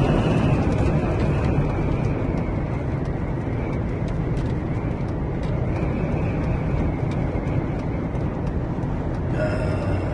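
Steady rumble and rushing wind and road noise heard from inside a car driving at speed through a sandstorm.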